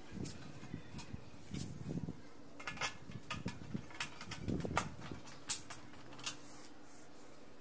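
Irregular light metallic clicks and taps as aluminium window-frame sections and a corner bracket are handled and fitted together by hand, with a screwdriver knocking against the metal; the sharpest clicks come about five seconds in.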